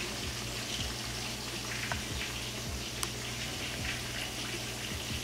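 Fish frying in hot coconut oil: a steady sizzle with many small crackles and pops.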